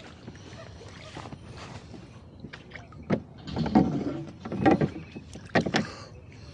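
A rowboat on the water: water lapping against the hull, then about halfway through a run of irregular knocks and clunks from the boat and its oars.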